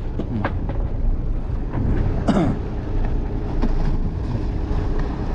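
Boat engine running with a steady low hum, with a short falling cry of a voice about two seconds in.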